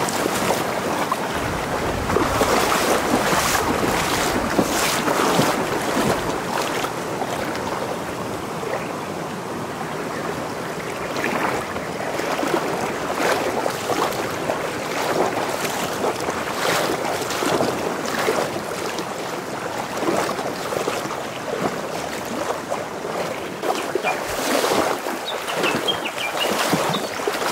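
Legs in waders pushing through a shallow mountain stream: irregular splashing steps over the steady rush of flowing water.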